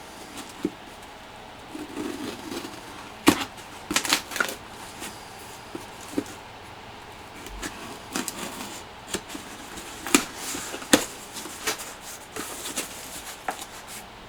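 Handling noises from unpacking an old canvas army field pack: rustling, with scattered sharp clicks and knocks.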